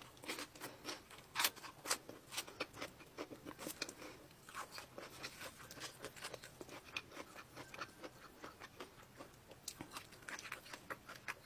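A person eating close to the microphone: a quick, irregular run of small crisp crunches and wet chewing clicks as fresh green leaves and noodles are chewed.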